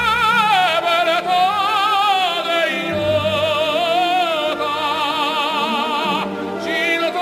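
Music: a singer holding long notes with a wide vibrato over a low accompaniment, the voice breaking off briefly near the end.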